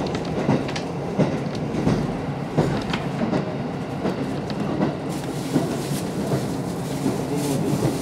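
Inside a KiHa 54 diesel railcar running along the line: a steady diesel engine hum under scattered clicks and knocks of the wheels over the rails. A brighter hiss joins in about five seconds in.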